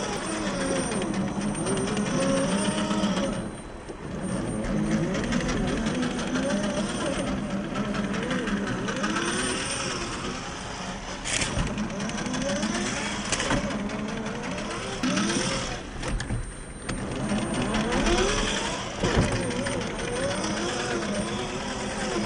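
An Axial SCX10 III RC rock crawler's 45-turn 540 brushed motor and gearbox whining, the pitch rising and falling again and again with the throttle. It goes nearly quiet briefly about 4 s in and again around 16 s, with a few sharp knocks.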